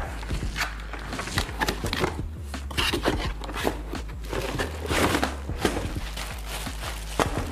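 Cardboard box opened by hand: flaps pulled open with scraping, tapping and tearing of card. About five seconds in comes the loudest burst, the crinkling of the plastic bag around a bicycle helmet as it is lifted out, all over a steady low hum.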